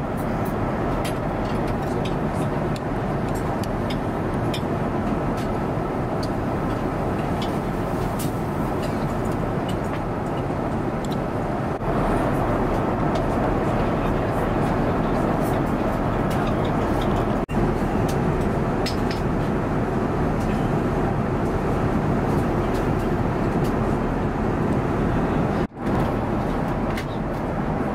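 Airbus A350-900 cabin noise in flight: a steady rushing drone of air and engines, with scattered faint clinks.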